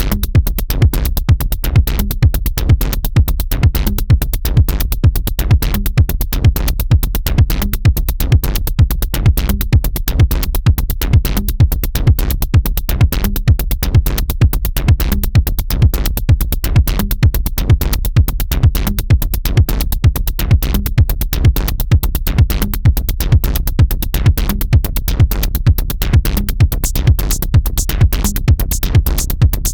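Electronic dance music with a fast, steady drum-machine beat and a constant bass.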